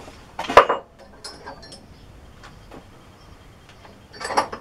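Steel drill bits clinking and rattling as they are handled and sorted. There is a loud metallic clatter about half a second in, light clicks after it, and another clatter near the end.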